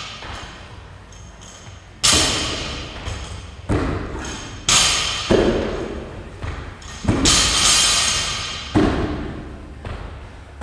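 Barbells loaded with bumper plates dropped onto a rubber gym floor: about six heavy thuds at uneven intervals, each followed by a short metallic ring.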